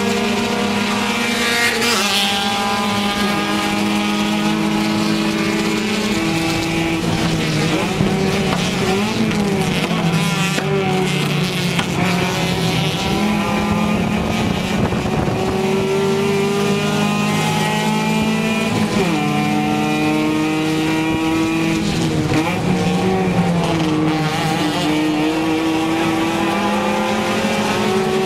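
Race car engine heard from inside the cabin, running hard and climbing in pitch through each gear, then dropping sharply at each gear change, several times over.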